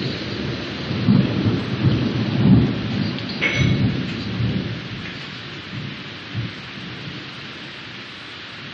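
Thunder rumbling over a steady hiss of rain. The rumble swells about a second in and dies away after about four seconds, leaving the rain.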